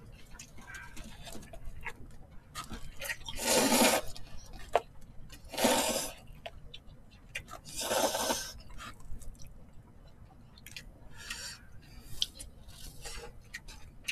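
Thin wheat noodles (somyeon) in spicy sauce being slurped three times, each a loud wet rush under a second long, with small clicks of eating between.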